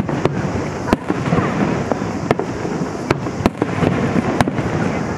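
Aerial fireworks shells bursting: about seven sharp bangs at irregular intervals of roughly half a second to a second and a half, over a continuous rumble and crackle from the display.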